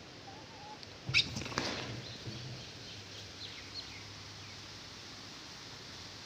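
Rhesus macaques: a sudden loud scuffle with sharp high squeaks about a second in, then a few faint short high squeaks.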